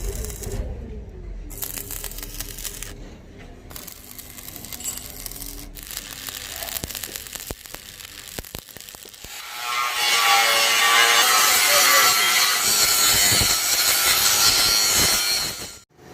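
Workshop tool noise: lighter scraping and a few knocks, then a power tool running loudly and steadily from about ten seconds in, cutting off abruptly near the end.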